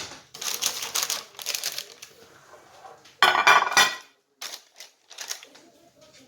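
A utensil scraping thick peanut butter fudge mixture out of a glass bowl into a pan, with clinks against the dishes. The loudest, harshest scrape comes about three seconds in.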